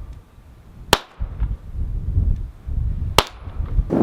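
Taurus TX22 .22 LR semi-automatic pistol fired twice, the shots a bit over two seconds apart, with wind rumbling on the microphone between them.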